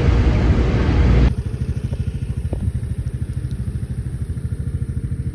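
Loud wind rush with an engine rumble, then about a second in a sudden cut to a small scooter engine idling with a steady rapid putter.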